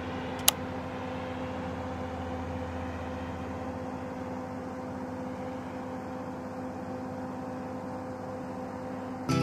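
Steady drone of an MC-130J Commando II's four Rolls-Royce AE 2100D3 turboprop engines as the aircraft climbs away. A single sharp click comes about half a second in.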